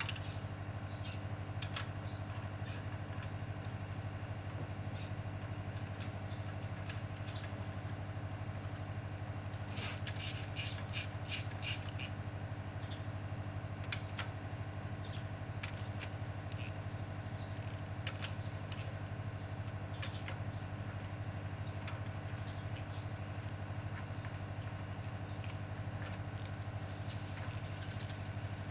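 Scattered light clicks and taps of work on engine parts, with a dense cluster about ten seconds in, over a steady low hum and a steady high whine.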